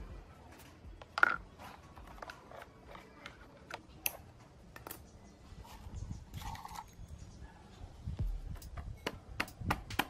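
Plastic fan base housing and loose parts being handled and set down on a tile floor: scattered clicks and knocks, the sharpest about a second in, with a few duller thumps in the second half.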